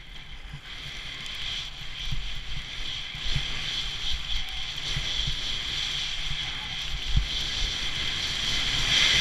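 Skis sliding and carving over packed snow: a steady hiss that grows louder as speed builds, with wind buffeting the microphone in irregular low thumps.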